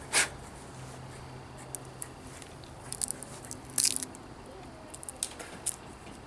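Dry peanut shells being cracked open by hand: brittle crunches and snaps, a short one at the start and a cluster about three to four seconds in.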